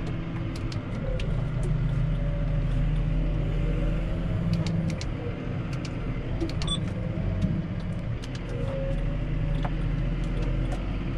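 Modern tractor's diesel engine running steadily at low speed, heard from inside the cab as the tractor creeps forward, with a few light clicks and rattles over the hum.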